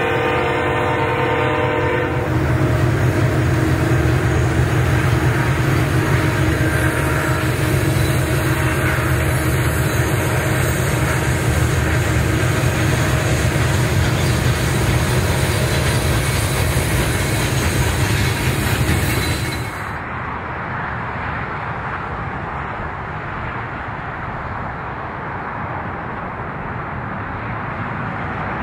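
A diesel locomotive's air horn sounds a chord, ending about two seconds in. A freight train follows, running by with a heavy low rumble of engines and wheels on the rails. About two-thirds of the way through, the sound cuts suddenly to a quieter, steady rushing noise.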